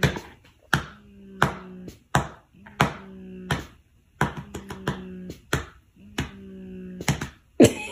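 A hand patting a baby's back to burp him: about a dozen firm, even pats, roughly three every two seconds, with a faint steady tone underneath.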